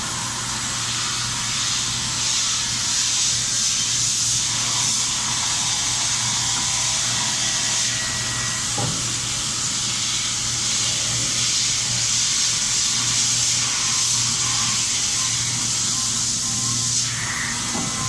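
Haas VF-5 vertical machining center running while milling natural HDPE: a steady hiss over a constant low machine hum.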